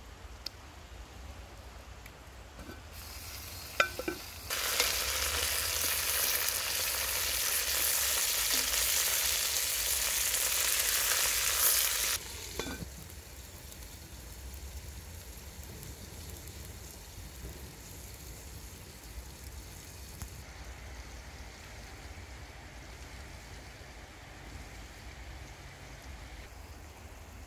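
Food sizzling in hot oil in a cooking pot over a wood fire. After a couple of clicks, a loud, even sizzle starts about four seconds in, holds for about eight seconds and cuts off sharply.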